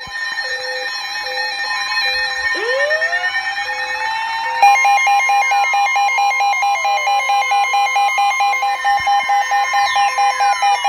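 Electronic emergency-alert tones: several steady alarm tones layered with siren-like sweeps rising and falling in pitch and a slower pulsing beep. About halfway through, a fast on-off beeping joins and the sound gets louder. Alert tones like these announce an emergency broadcast warning.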